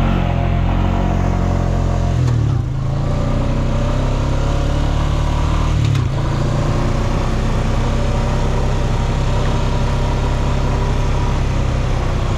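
Quad bike (ATV) engine running hard under load, its note shifting briefly about two and a half seconds in and again about six seconds in, as with throttle or gear changes.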